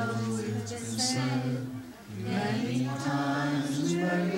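A group of people singing together without instruments, holding long drawn-out notes, with a short break for breath about two seconds in.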